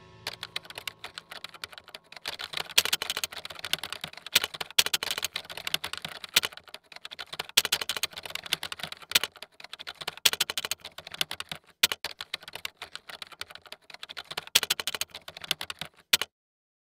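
A quick, irregular run of light clicks and taps, many a second, like keys being typed, cutting off suddenly near the end.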